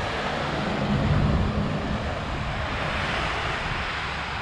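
Ocean surf washing on the beach, heard as a steady rushing hiss that swells around three seconds in, with wind buffeting the microphone. A low drone rises briefly about a second in.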